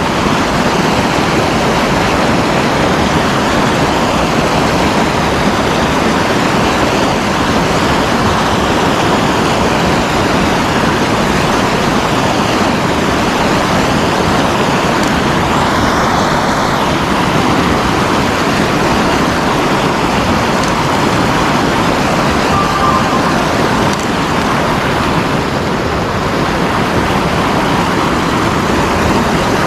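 River water pouring over a low dam, a loud steady rush of whitewater close by.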